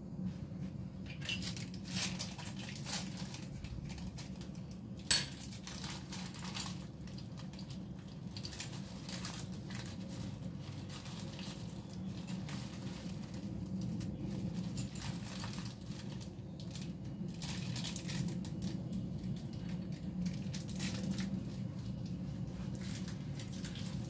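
Faint rustling and light clatter of things being handled on a kitchen counter, over a steady low hum, with one sharp click about five seconds in.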